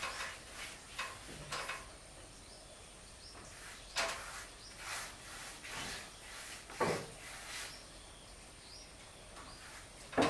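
A paintbrush scrubbing anti-mould paint onto wooden wall boards: short, irregular swishes, with a few sharper knocks, the loudest near the end.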